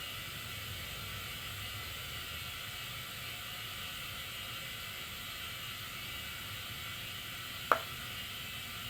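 Steady, fairly faint hiss of compressed air flowing from the compressor tank through the hose into a car tire, with the compressor motor still off. A single short click sounds about three-quarters of the way through.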